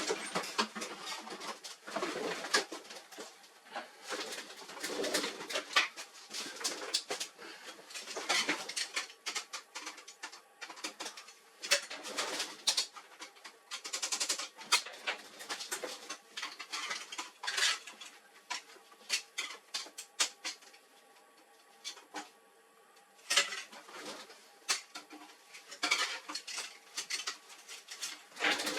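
Irregular clicks and metallic clinks of tools, screws and metal printer parts being handled during disassembly, with a quieter stretch about three-quarters of the way through.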